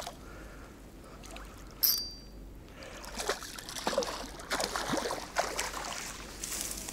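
Hooked pike splashing and thrashing at the surface of a stream as it is played in on a spinning rod, with short irregular splashes through the second half. About two seconds in there is one sharp, high-pitched ringing sound.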